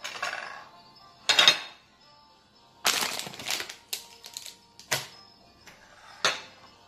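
Porcelain serving dishes being slid and set down on a hard tabletop: a string of short clatters and scrapes, the loudest about a second and a half in. Faint background music runs underneath.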